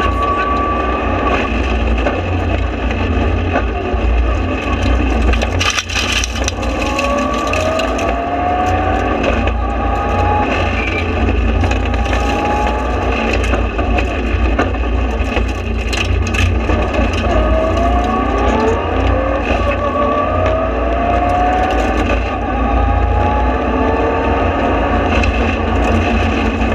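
In-car sound of a Mitsubishi Lancer Evolution rally car driven flat out on a stage. The turbocharged four-cylinder engine and gearbox climb in pitch through each gear and drop back at every shift, over heavy road and tyre rumble. A few sharp cracks cut through.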